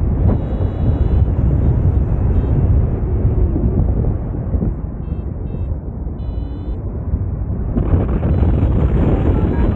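Wind buffeting the microphone in flight under a paraglider, loud and rough. A few short high beeps come through it around the middle.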